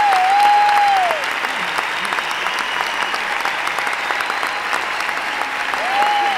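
Large audience applauding steadily, with one long high call from someone in the crowd at the start and again near the end.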